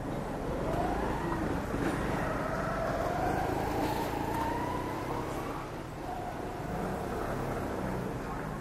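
Engine of a passing motor vehicle over a steady low rumble, its pitch rising about half a second in, then holding for a few seconds before fading.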